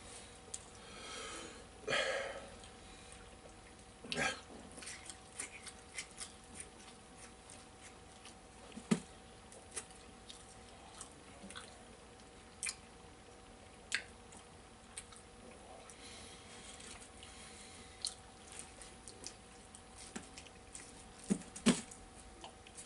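People chewing and biting into pizza: scattered small clicks and soft mouth sounds at a low level, over a faint steady hum.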